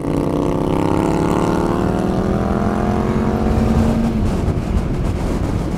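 Yamaha Fazer 1000's inline-four engine under way, its pitch rising steadily as the motorcycle accelerates, then dropping about four seconds in as the rider shifts up, with wind rushing past.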